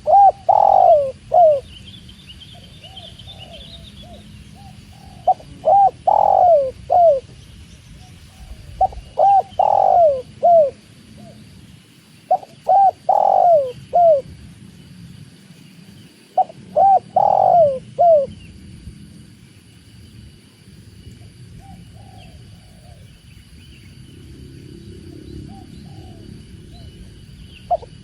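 Spotted dove (tekukur) cooing: five phrases of several coos each, a few seconds apart, then a longer pause near the end, over a faint steady background hiss.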